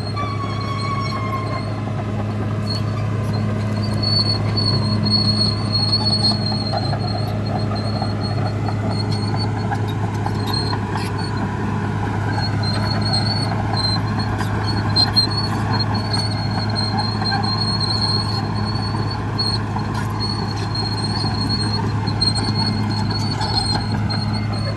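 Caterpillar D6R bulldozer's diesel engine running steadily under work, with a high squeal from the steel tracks coming and going over it.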